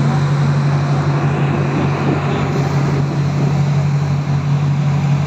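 A boat's engine running steadily, a constant low drone, with a haze of wind and sea noise over it.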